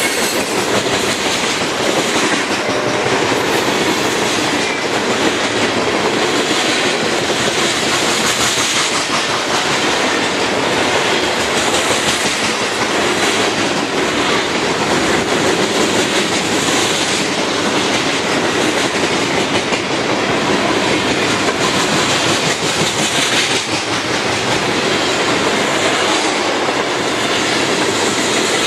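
Loaded freight cars of a BNSF manifest train rolling steadily past at close range, a dense rumbling clatter of steel wheels on rail that continues without a break.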